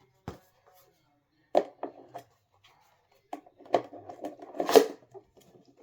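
Hard plastic toolbox parts being handled: scattered clicks and knocks, then a busier clatter with a loud knock near the end, as the removable plastic bins are moved about.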